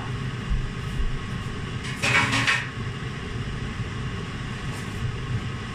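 Steady low machine hum, with a brief noisy burst about two seconds in.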